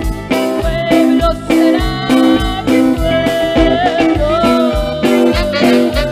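Live band playing an instrumental passage: electronic keyboards and a drum kit keep a steady beat of about two kicks a second under a repeating bass line, while a lead melody line slides in pitch about halfway through.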